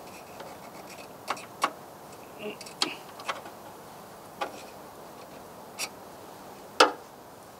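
Scattered sharp clicks and taps, about seven of them at uneven intervals, the loudest near the end, as the engine oil dipstick is handled from behind the rear wheel of a Honda Acty van.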